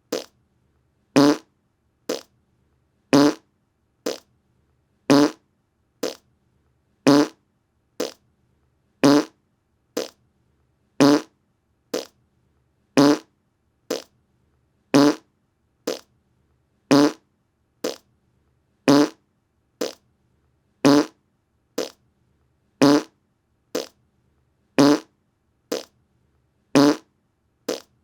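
A short fart sound repeated about once a second, the bursts alternating between louder and softer.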